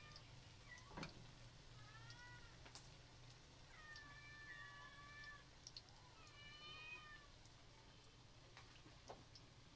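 Faint, drawn-out cat meows, one every second or two, over a low steady hum, with a few faint sharp pops.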